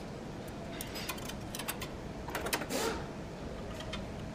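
Light clicks and rattles of small metal fittings and a thin tube being worked loose from the oil separator tank cover of a screw air compressor, with a louder cluster of clicks about two and a half seconds in, over a steady low background noise.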